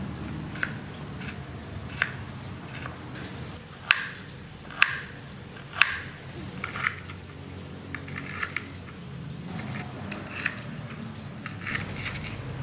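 Knife slicing fresh ginger, kencur and lemongrass on a cutting board: sharp chops at uneven intervals, roughly one a second, over a low steady hum.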